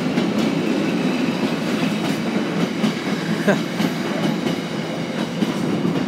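Container wagons of a freight train rolling past close by: a steady rumble of wheels on rail with a few scattered clicks.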